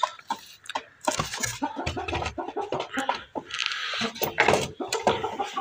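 Chickens give a few short clucks near the start. Then comes irregular rustling and handling of woven plastic sacking and cloth, with a few light knocks.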